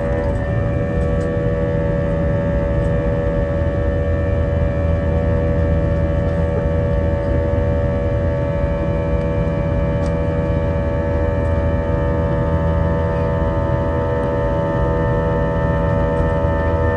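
Airbus A321 cabin noise: a steady rumble of engines and airflow with several fixed whining tones over it, unchanging throughout.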